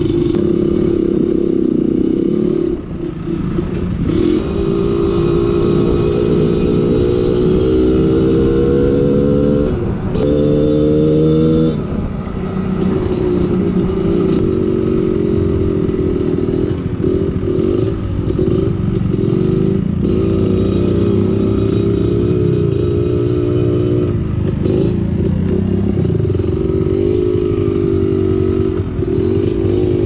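Trail motorcycle engine running under load off-road. Its pitch climbs twice in the first twelve seconds as it is throttled up, drops back, then holds fairly steady with brief dips as the throttle is eased and opened again.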